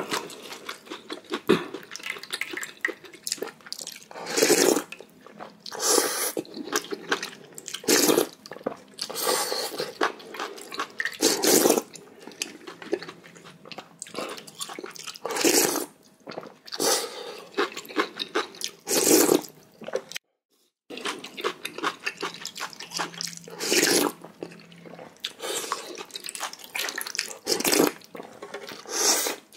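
Close-miked eating of spicy ramen broth with rice soaked in it: repeated wet slurps and sips every second or two, with chewing between. A brief silent gap about two-thirds through.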